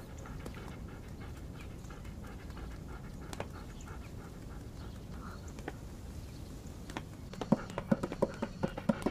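A wolf-like dog panting steadily. About a second and a half before the end, its paws start tapping sharply and quickly on wooden floorboards as it trots off.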